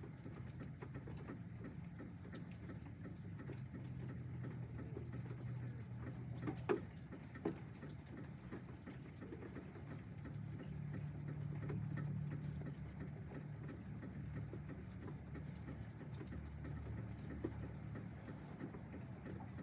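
Light rain pattering, with a few sharper drips, and the low rumble of distant thunder swelling and fading about halfway through.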